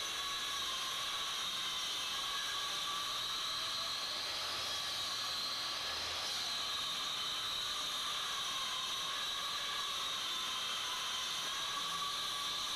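Steady high hiss with faint tones that drift slowly up and down in pitch.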